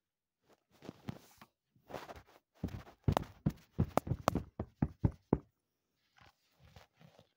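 A chocolate lollipop on a stick knocking against the recording phone: a quick run of about ten sharp taps in the middle, with softer rubbing and handling sounds before and after.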